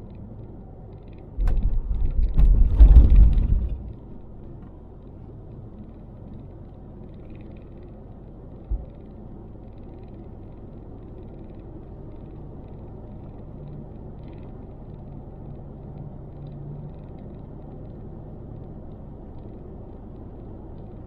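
Road noise inside a moving car. About a second and a half in, a loud low bumping lasts about two seconds as the tyres go over a railroad crossing. After that comes a steady low rumble of tyres and engine, with one short knock near the middle.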